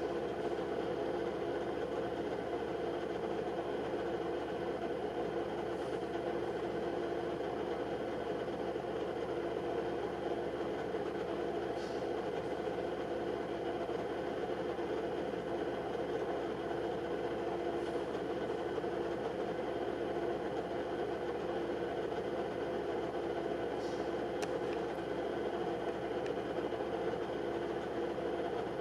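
A steady mechanical hum with a faint tick about every six seconds.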